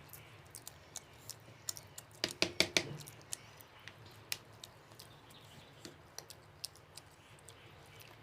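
Eating sounds: scattered small mouth clicks and smacks as someone eats mutton biryani by hand, with a quick run of five or six louder clicks a little over two seconds in.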